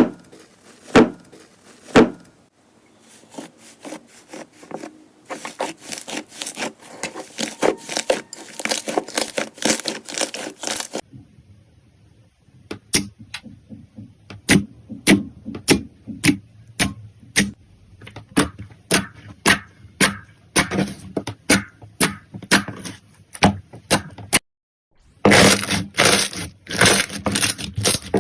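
Slime being pressed and worked by hand, giving sharp pops and crackles. First come a few single pops, then a dense crackling, then a long run of separate pops at a steady pace. After a short silence near the end there is a last dense crackling.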